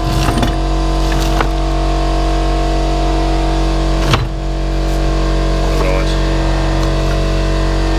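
Workshop compressor running with a steady, even drone. A few knocks and rattles of things being moved about on a cluttered workbench sit on top, the sharpest about four seconds in.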